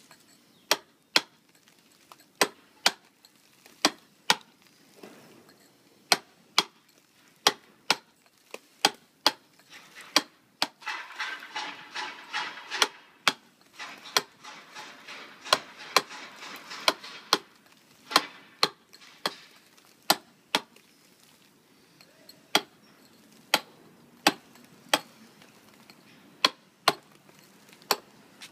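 Mason's mallet striking a steel chisel into sandstone, dressing a quoin to a stugged tool finish: sharp, separate blows at about one or two a second, with short pauses. About a third of the way in, a few seconds of rough scraping noise run between the blows.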